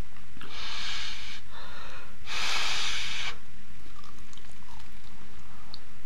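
A person breathing hard through the nose while chewing: two strong breaths about a second long, with a softer one between them, then faint small chewing clicks.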